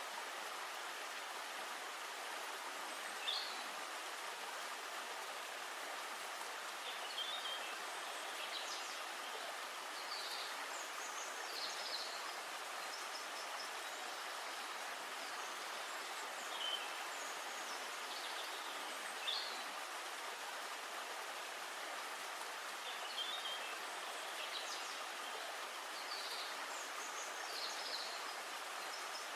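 Steady outdoor forest ambience: an even hiss with short high bird chirps scattered throughout.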